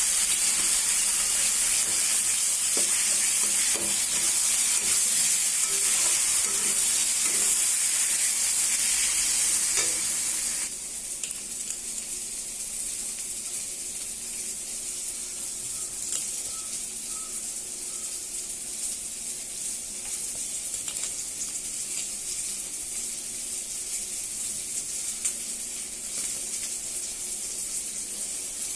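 Food sizzling and frying in a hot pan, with light knocks in the first several seconds; the sizzle drops quieter about ten seconds in and stays steady.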